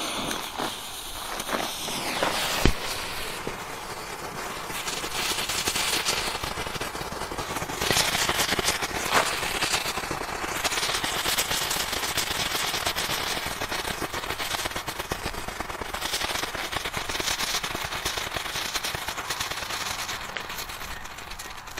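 Killer Flash ground firework going off: after the fuse sparks, one sharp pop comes about three seconds in, then a long run of rapid crackling pops that goes on for most of twenty seconds and tails off near the end.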